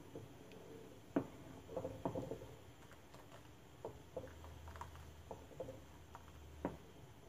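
A wooden spoon stirring a thick milk-based flan mixture in a saucepan: faint, irregular scrapes and light knocks of the spoon against the pot, a few sharper knocks about a second in, around two seconds and near the end.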